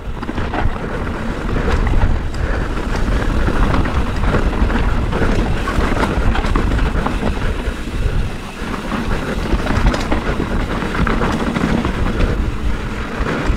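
Wind buffeting the microphone over the crunch and rattle of a mountain bike rolling fast down a loose, rocky dirt trail, with small clicks and knocks from the tyres and frame on stones.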